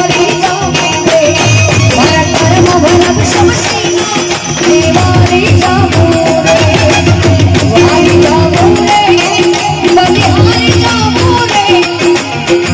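Live Rajasthani folk bhajan music: a harmonium and a dholak with jingling manjira hand cymbals keeping a steady beat, and a woman's voice carrying the melody.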